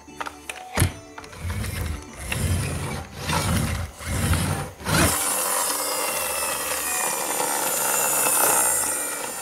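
Plastic toy airplane handled on a table: a few plastic clicks and knocks at first, then from about halfway a steady rasping rub of its plastic wheels as it is pushed along. Background music plays underneath.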